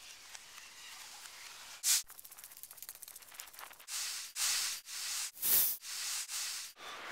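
Low hiss, then a single sharp hiss about two seconds in and a quick run of soft ticks. From about four seconds, a string of five or six short, loud hissing swooshes follows, each under half a second.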